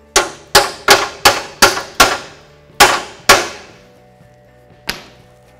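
Hammer striking a steel twisty (extractor) socket: eight sharp, ringing metal-on-metal blows in about three and a half seconds, then one lighter blow near the end.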